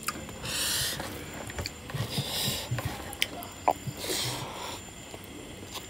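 Close-miked eating: wet chewing and mouth clicks from rice and pork curry eaten by hand, with three short hissing sounds about half a second, two seconds and four seconds in.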